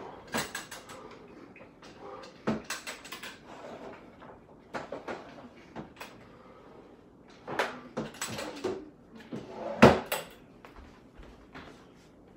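Scattered light knocks, clatters and rattles of small objects being handled and set down, with the sharpest knock about ten seconds in.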